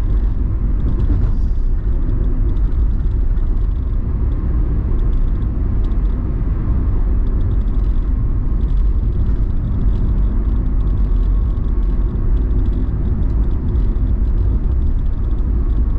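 Steady low rumble of a car driving at constant speed through a road tunnel, heard from inside the cabin: engine and tyre-on-road noise.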